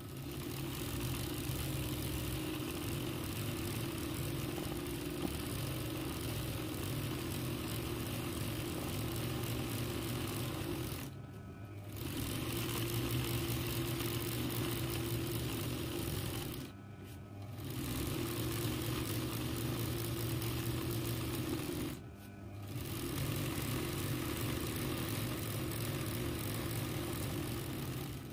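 Ranew 130 zigzag embroidery machine running at speed, stitching free-motion embroidery through silk fabric, with a steady motor hum and needle clatter. It stops briefly three times, about eleven, seventeen and twenty-two seconds in, then runs again.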